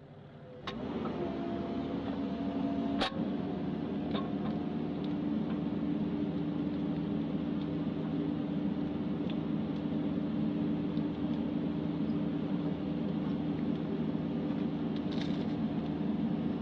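Bobcat machine's diesel engine running steadily under the slow moves of its toothed grapple bucket, with one sharp click about three seconds in.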